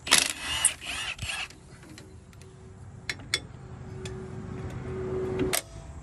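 Cordless impact wrench on a trailer wheel's lug nuts: a few loud rattling bursts of hammering in the first second and a half. Then a steady whine grows slowly louder and cuts off sharply near the end.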